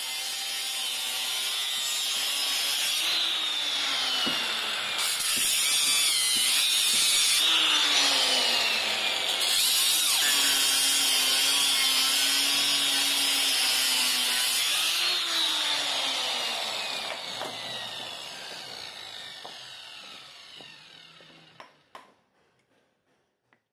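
Power tool running, its pitch dipping and rising as it works, then switched off about 15 seconds in and winding down with a falling pitch over several seconds. Two light clicks near the end.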